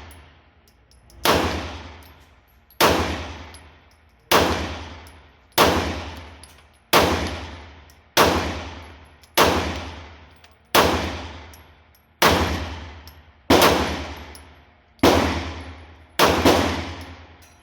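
Handgun shots fired at a slow, even pace: about a dozen single shots, each roughly a second and a quarter after the last, each ringing off in the reverberation of an indoor range.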